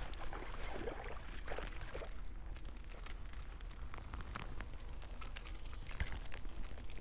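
Light, irregular clicks and rustles of handling a fishing rod, line and a freshly caught small fish on a dry grass bank, with a cluster of louder clicks near the end.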